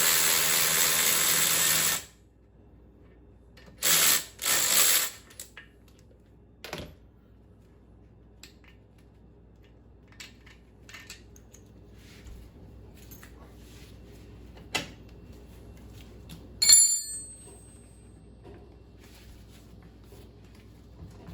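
Mechanic's hand tools working the hydraulic ram bolts on a stern drive. A loud hissing rasp lasts about two seconds at the start and comes twice more, briefly, around four seconds in. Scattered faint tool clicks follow, then a single ringing metal clink near the end.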